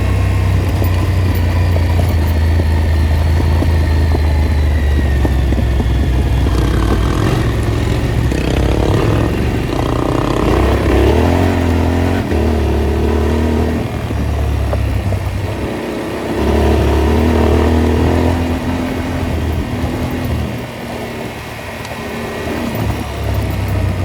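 Off-road motorcycle engine running continuously while riding, revs climbing twice as the throttle is opened and then easing off for a while near the end.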